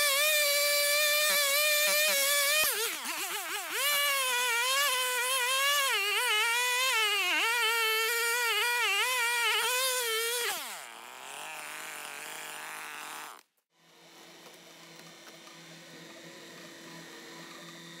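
Gas chainsaw at full throttle, then sawing into a large tree root, its pitch dropping and wavering under load for about seven seconds before it winds down about ten seconds in. After a sudden break, a compact track loader's engine runs faint and steady.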